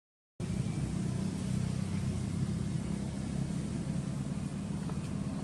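A brief drop to silence, then a steady low rumble with even background hiss, like a motor running nearby.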